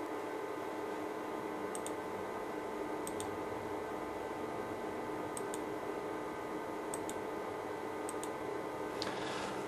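Faint computer mouse clicks, coming in quick pairs every second or two, over a steady room hum.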